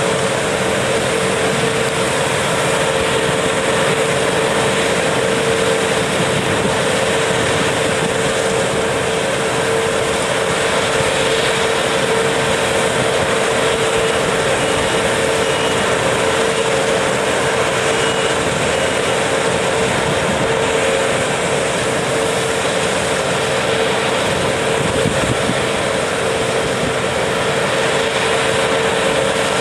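Claas combine harvester running steadily while it harvests and unloads grain through its auger into a tractor-drawn trailer alongside, a constant machinery drone with a steady mid-pitched hum and the tractor's engine mixed in.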